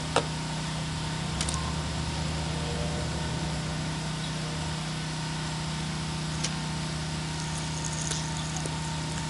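Pressure washer running with a steady, even hum. A few sharp clicks sound over it, the loudest just after the start.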